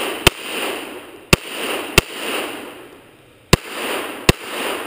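Five pistol shots from a semi-automatic handgun, fired at an uneven pace: two close pairs and a single shot, with a longer pause in the middle. Each sharp crack is followed by about a second of echo fading away.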